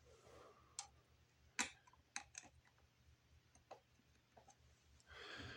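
Scattered sharp clicks and taps from handling the parts of an oscillating fan's motor, the loudest about one and a half seconds in.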